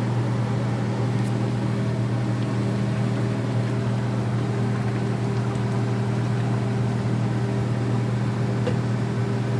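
Steady low electric hum of a kitchen appliance motor running at constant speed.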